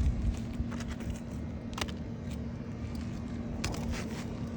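A few short clicks and scrapes of a roofing tool working shingle nails loose on asphalt shingles, over a steady low rumble and hum.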